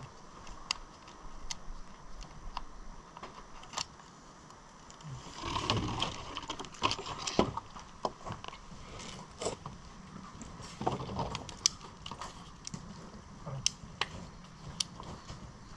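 Scattered sharp taps and scuffs of people moving on rock and crash pads: a climber's shoes and hands on the boulder, and spotters shuffling below. There is a denser stretch of scuffing and rustling about five to seven seconds in.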